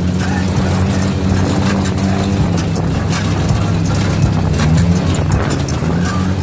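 Side-by-side UTV engine running steadily as the vehicle drives over rough ground, with frequent short knocks and rattles from the ride.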